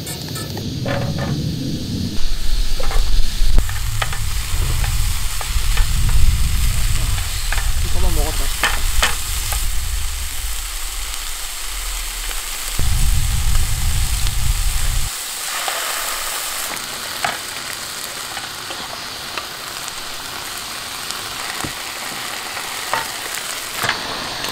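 Food sizzling and frying in a camping frying pan on a portable gas stove: first oil, then mushrooms and bacon, then pasta in a cream sauce. Chopsticks stir against the pan with a few sharp clicks. A low rumble runs through the first half and is loudest a few seconds in.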